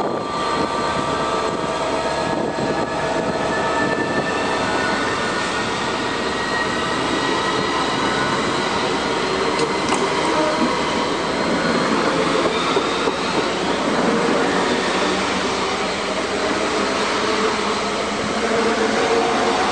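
Class 395 Javelin high-speed electric multiple unit running past close by, a steady rush of wheel and motor noise, with a whine rising in pitch over the first few seconds.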